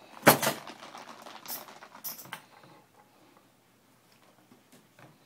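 A plastic utensil clicking and scraping against a plastic plate as rice is scooped: one sharp click just after the start, then about two seconds of light scrapes and taps.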